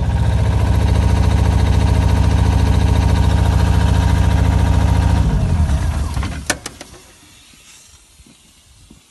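Deutz diesel engine of an Ingersoll Rand P130WD mobile screw compressor running steadily, then shut off about five seconds in and running down to a stop, with a few sharp clicks as it stops.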